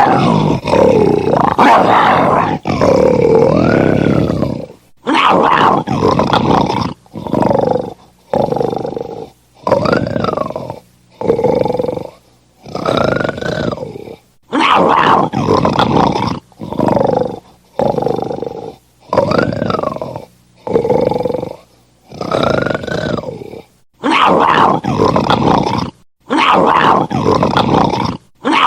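Lion roaring and snarling furiously in short, loud bursts about one to one and a half seconds apart, each cut off by a brief silence, some with a pitch that rises and then falls.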